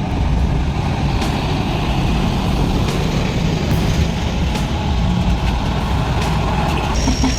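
Heavy vehicle engine running steadily, a dense low rumble with a few sharp clicks and knocks over it. A thin high whine comes in near the end.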